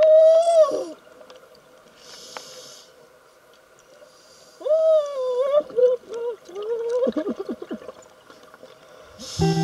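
Audio from an underwater camera on a recovery dive: a wavering, moaning tone that slides up and down in pitch, coming and going in several long phrases, which the caption and the diver liken to crying or a call for help. Hissing breaths through the diver's scuba regulator come between the moans. Plucked guitar music starts near the end.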